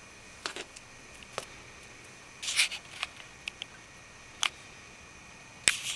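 Scattered small rustles and clicks as a cat paws at and mouths a catnip toy, with a louder cluster of rustling about two and a half seconds in and a sharp click near the end.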